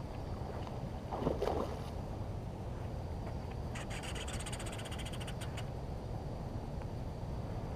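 A fishing reel clicking rapidly for about two seconds, starting about four seconds in, while a bent rod plays a hooked salmon. Under it is a steady low background noise, with a brief louder burst about a second in.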